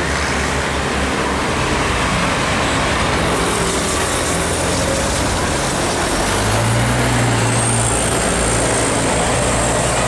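Road traffic with buses and motorbikes passing: a steady rush of engines and tyres, with a bus engine's low drone growing louder about six seconds in as a medium bus passes close by.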